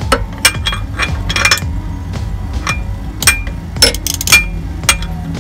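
Irregular sharp metallic clinks and knocks, a dozen or so, some with a brief ring, as metal tools are handled and set against the rear suspension of a car, over a steady low hum.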